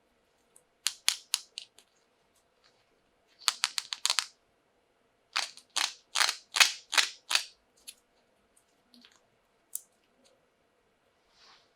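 Plastic toy pieces and packaging being handled during unboxing, giving clusters of sharp clicks and crinkles: a quick burst about a second in, a faster rattle of clicks around four seconds, and a longer run of louder crackles from about five and a half to seven seconds.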